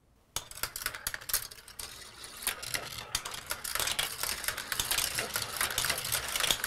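Marbles rolling and clattering through a Gravitrax marble run's plastic track and green spiral: a steady run of small clicks and rattles that starts about a third of a second in.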